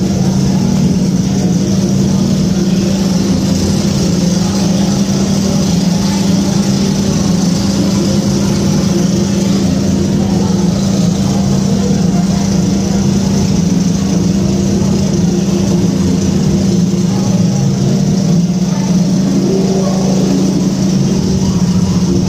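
Engine of a large passenger launch running steadily while under way on the lake, a constant low hum.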